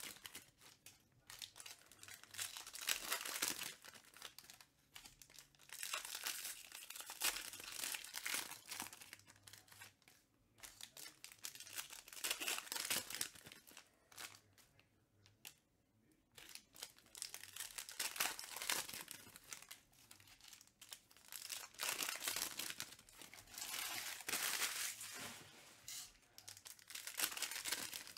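Foil wrappers of Panini Prizm UFC trading-card packs being torn open and crinkled by hand, in repeated spells of crackling a second or two long with short pauses between.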